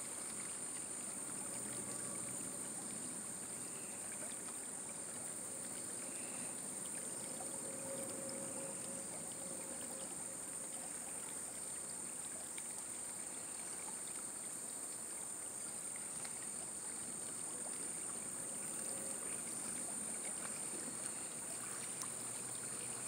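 Steady rush of flowing river water, with a continuous high-pitched drone of insects over it.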